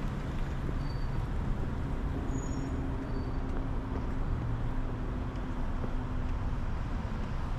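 Cars running slowly along a street, a steady low engine rumble with no distinct events.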